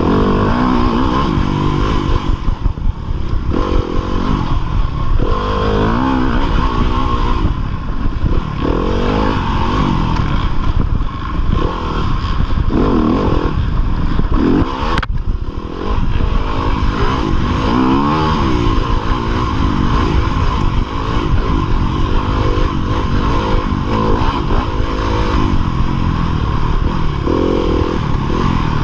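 2015 Yamaha YZ250FX dirt bike's single-cylinder four-stroke engine running hard, its pitch rising and falling again and again as the throttle is worked. There is a single sharp knock about fifteen seconds in.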